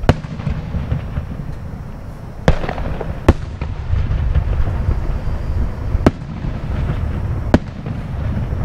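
Distant fireworks going off: five sharp bangs spaced a second or more apart, over a steady low rumble.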